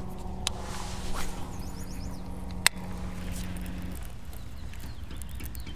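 Electric bow-mounted trolling motor humming steadily on a bass boat, cutting off about four seconds in. A single sharp click comes near the middle.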